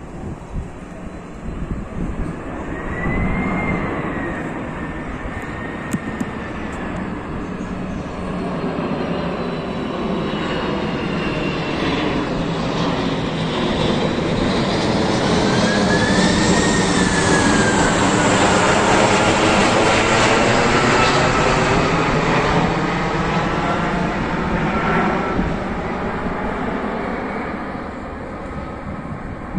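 A Boeing 747's four jet engines passing by as the jet comes in to land: a broad rush with high whining tones that swells to a peak about two-thirds of the way through, then fades.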